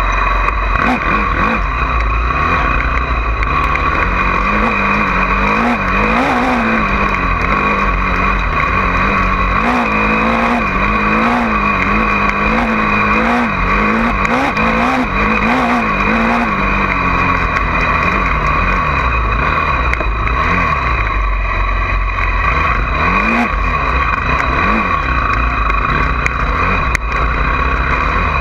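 Honda CRF450R dirt bike's single-cylinder four-stroke engine being ridden, its pitch rising and falling over and over as the throttle is worked, busiest through the middle, over a steady low rumble of noise.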